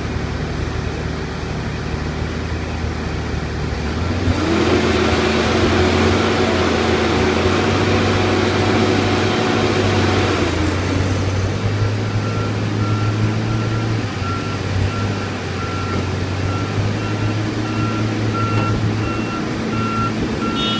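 Heavy diesel engines of a logging skidder and a truck-mounted log loader running. About four seconds in, an engine revs up hard under load for around six seconds, then drops back to a steady run. From about halfway on, a backup alarm beeps repeatedly.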